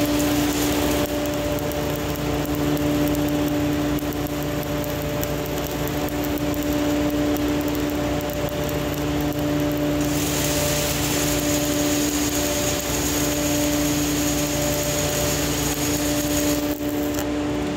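Stick welding arc burning steadily with a continuous crackle and hiss as a Lincoln 308 stainless electrode, 1/8 inch at about 127 amps, is run vertical up. There is a brief break in the arc near the end.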